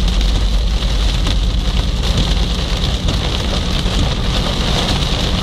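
Heavy storm rain hitting a moving car's windscreen and body, heard from inside the cabin as a steady hiss over the low, even rumble of the car on the wet road.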